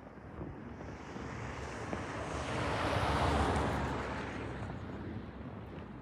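Snowstorm wind buffeting the microphone with a low rumble, and a rushing swell that builds to a peak about halfway through and then dies away.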